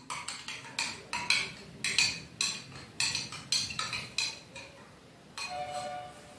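Metal spoon stirring harad powder into warm water in a glass tumbler, clinking against the glass about twice a second; the clinks thin out after about four seconds.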